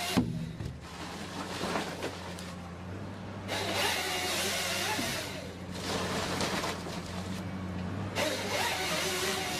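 An engine-driven machine running steadily, with a sharp knock just after the start and two stretches of louder harsh noise, typical of machinery working wood.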